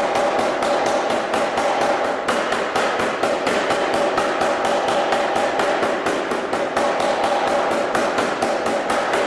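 Anyang self-contained air power hammer pounding a hot steel bar, a rapid even run of about four blows a second.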